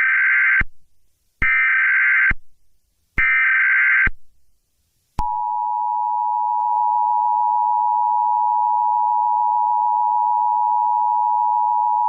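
Emergency Alert System alert tones: three short bursts of the buzzing SAME header data, about a second each, then about five seconds in the steady two-tone EAS attention signal begins and holds.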